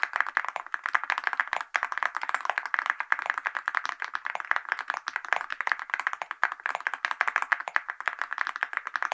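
Fast, continuous typing on a mechanical keyboard fitted with Awekeys gold metal keycaps: a dense stream of clicky keystrokes, many per second, with a brief gap about a second and a half in.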